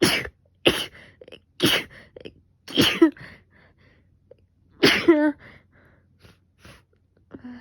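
A person sneezing five times in a row during a sneezing fit while ill with a fever. The sneezes come about a second apart at first, then after a longer gap. The later ones end in a short voiced cry.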